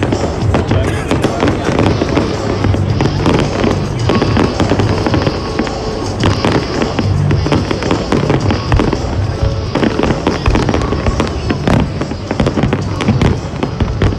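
A large aerial fireworks display: a continuous barrage of shell bursts, bangs and crackles, with music playing behind.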